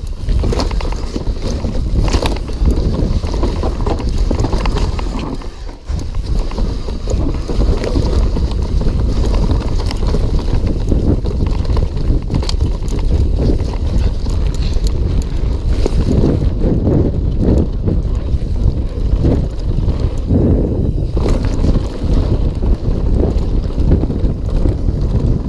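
Mountain bike descending a dirt race trail at speed. Wind buffets the microphone, and the tyres roll over dirt and rocks while the bike rattles and knocks over bumps. The noise briefly drops about six seconds in.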